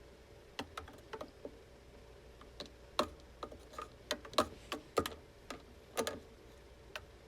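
Irregular sharp metallic clicks and taps from a wrench working the washer's 7/16 agitator nut, loosely grouped and loudest about halfway through.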